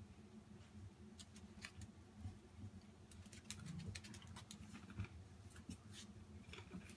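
Cairn terriers' claws clicking on a hard laminate floor as the dogs scamper about in play: faint, irregular ticks that come thicker in the second half.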